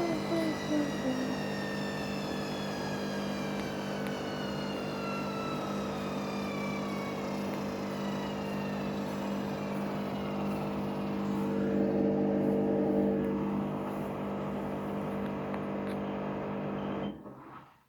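Washing machine on its spin cycle, the motor whine falling steadily in pitch as the drum slows down, over a steady low hum, with a brief swell in level a little after halfway. The sound cuts off suddenly near the end.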